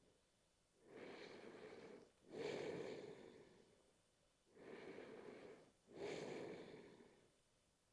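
Quiet, slow, deep breathing close to the microphone: two full breaths, each a breath in followed at once by a breath out, with a short pause between them.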